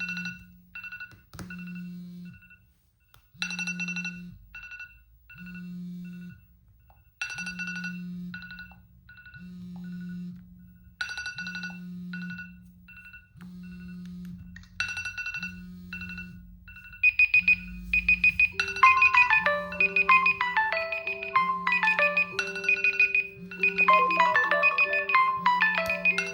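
Smartphone alarm sounding: groups of short electronic beeps repeat about every two seconds, each with a low pulsing buzz. About seventeen seconds in, a louder melodic ringtone tune takes over, and the buzz keeps pulsing under it.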